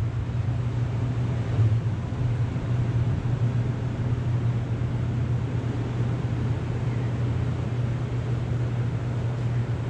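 Steady low rumble under an even wash of noise: wind and distant ocean surf breaking on a rocky shore.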